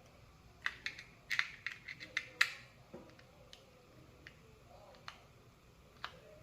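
Light clicks and taps of the small plastic and metal parts of an opened Andis two-speed rotary clipper being handled: a quick run of clicks in the first couple of seconds, then a few single clicks spaced out.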